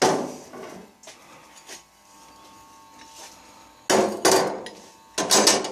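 Small scrap metal parts knocking and clattering as they are handled and set down. One sharp knock comes at the start, then two quick bursts of rattling knocks about four and five seconds in.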